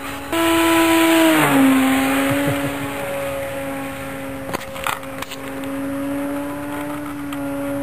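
Electric RC airplane's E-flite .32 brushless outrunner motor and propeller in flight, a steady whine. Its pitch drops a little about a second and a half in and then holds steady. There are two brief clicks near the middle.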